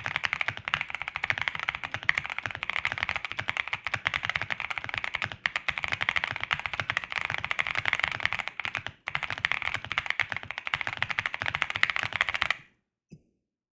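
Fast typing on a KBDFans Taco75 mechanical keyboard with lubed and filmed Boba U4T silent tactile switches in a polycarbonate plate, under MT3 keycaps: a dense run of rapid keystrokes with two short pauses. The typing stops about a second before the end, followed by one lone keystroke.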